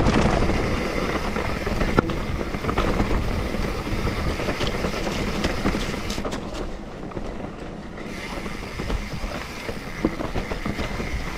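YT mountain bike rolling fast down a rough dirt singletrack. The tyres rumble over dirt and stones and the bike rattles, with sharp knocks from hits on rocks, the loudest about two seconds in. It goes quieter for a moment around the middle.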